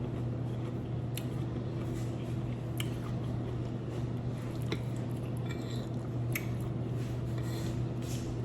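Close-up wet chewing and biting of pickled asparagus, with scattered short crunchy clicks and squishes. A steady low hum runs underneath and is the loudest sound.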